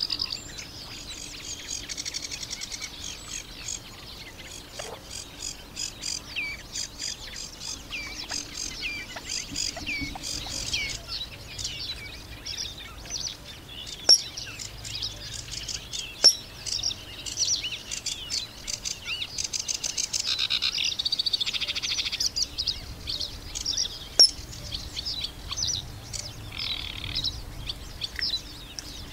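Small birds calling in a reed bed, a dense run of high, short chirps and little sliding notes. Three sharp clicks stand out, about fourteen, sixteen and twenty-four seconds in.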